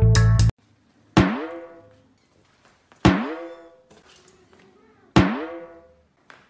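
Cartoon 'boing' sound effect played three times about two seconds apart, each a sharp twang that bends upward in pitch and rings out over about a second. Background music cuts off about half a second in.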